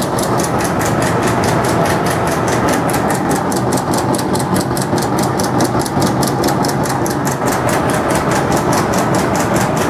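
Electric meatball (bakso) forming machine running steadily: a motor hum with a rapid, even ticking of about six to seven beats a second as the rotating head extrudes and cuts off the meatballs.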